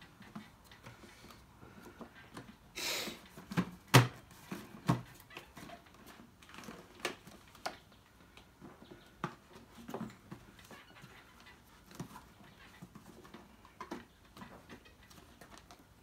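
Knocks, clicks and rustling as a dust bag is fitted back into an Electrolux 725 vacuum cleaner, with a short rustle about three seconds in and the loudest knock just after it, then scattered lighter taps.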